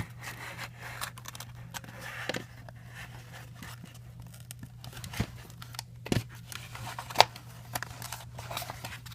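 Cardboard pieces of a VR cardboard viewer being handled and folded into place: light scraping and rustling with several sharp taps, the loudest about six and seven seconds in.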